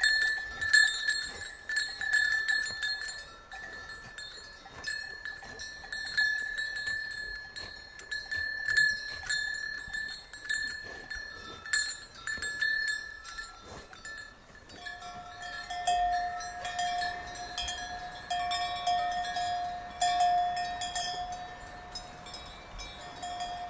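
Cowbells on grazing cows clanking and ringing irregularly as the cows move their heads. A second, lower-pitched bell joins in about two-thirds of the way through.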